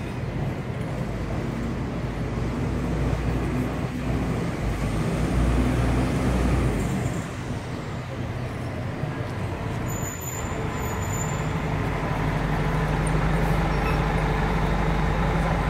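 City street traffic noise, then a fire engine's diesel engine rumbling, growing steadier and stronger over the last few seconds as the truck pulls in close.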